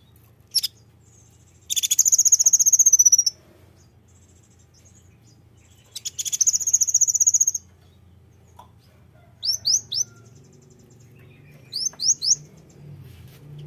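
Konin songbird calling: two rapid, buzzy trills about a second and a half long each, then two sets of three quick, sharp whistled notes, over a faint low hum.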